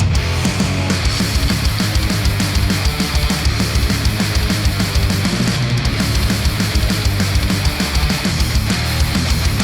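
Heavy metal style rock music with a fast, driving kick-drum pattern, played back through a headphone and recorded by microphones at the ear cup.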